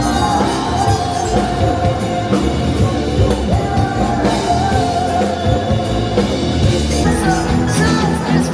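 Background music: an upbeat pop-rock Christmas song with drums.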